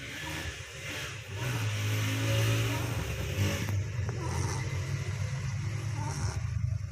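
Puppy snoring: a low, rattling drone, strongest about one and a half to three and a half seconds in.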